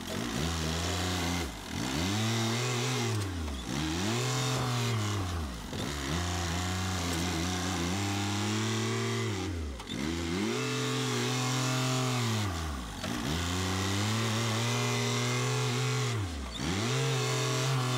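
New Holland loader tractor's engine running under load while spreading gravel, its pitch dropping sharply and climbing back up again and again, about every two to four seconds.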